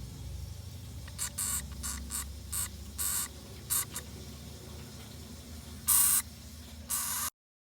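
Yellow Djungarian hamster crying: a string of about ten short, harsh, hissy squeaks, the loudest two near the end.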